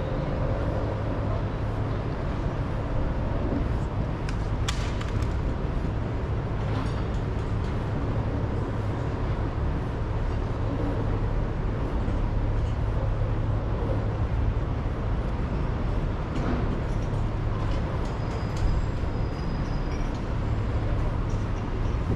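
Steady city traffic and engine rumble, low and continuous, with a few faint knocks and clicks.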